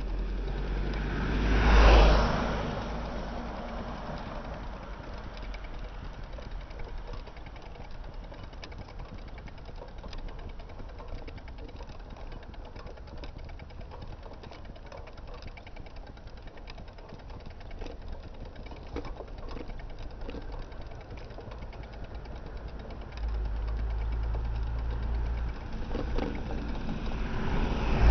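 A small box truck passes close by about two seconds in, a rushing swell of engine and tyre noise that fades away. Light road noise follows, then a low engine sound sets in abruptly near the end and grows as a bus draws alongside.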